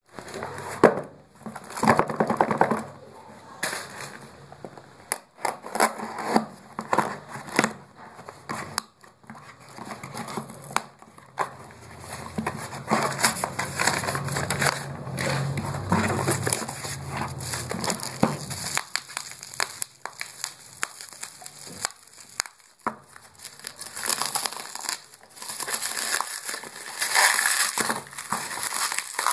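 Packaging being unwrapped by hand: paper, a cardboard box and bubble wrap rustling and crinkling in irregular spells, with small crackles and clicks.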